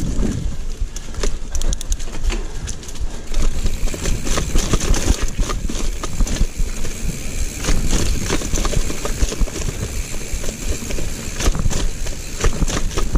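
Giant mountain bike ridden over a rooty dirt trail: a steady low rumble of tyres on dirt, with frequent irregular knocks and rattles as the bike goes over roots and bumps.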